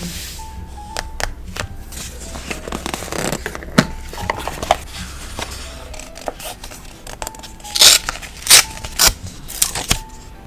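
Paper being handled and torn, with many small taps and clicks and three loud rasps near the end.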